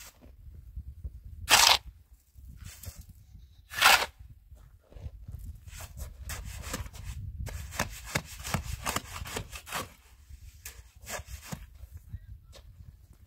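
A shovel scraping and digging into a heap of sand and soil on stony ground: two loud scrapes about two seconds apart, then a run of quicker, shorter scrapes and crunches.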